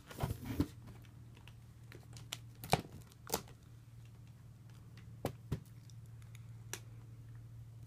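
Hands rummaging in soil-like substrate in a clear plastic case: brief rustling at first, then a few scattered light clicks and taps of fingers and wood against the plastic, over a faint steady low hum.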